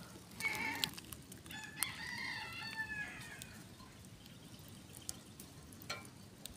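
A rooster crowing once, a single drawn-out call that rises slightly and then falls, from about a second and a half in to about three seconds. A few faint clicks come before and after it.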